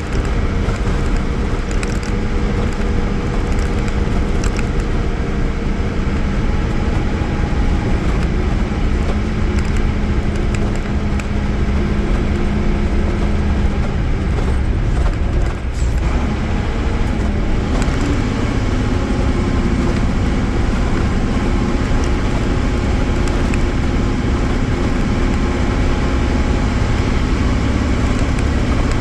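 Mercedes-Benz OF-1318 bus's OM-366A inline-six turbodiesel running under way with a steady engine note. About halfway through the note drops and the level dips briefly, then the engine pulls again at a slowly rising pitch.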